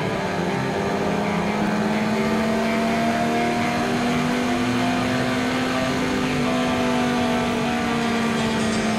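A 2008 Yamaha R6's inline-four engine running at a steady cruise. Its pitch rises gently through the middle and eases off a little near the end, over a constant rush of wind noise.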